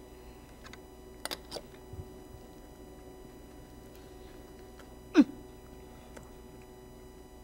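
Quiet studio room tone with a steady electrical hum while two men chew mouthfuls of burger, with a few faint clicks a little over a second in. About five seconds in comes one short, loud "mmm" falling in pitch: a hum of approval at the taste.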